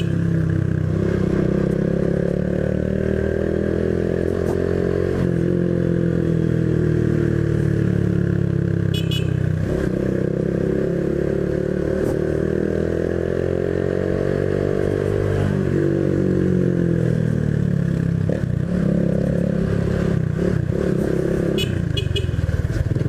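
Honda Biz 125's single-cylinder four-stroke engine pulling under acceleration through the gears. Its pitch rises, then drops at each shift about 5, 10 and 15 seconds in, then wavers and climbs again.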